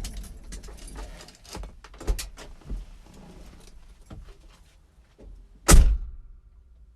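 A run of small clicks and knocks, then one loud thump near the end.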